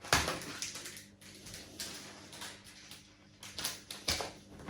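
Packaging and loose parts being handled: irregular rustling with a few knocks, loudest just after the start and again near the end.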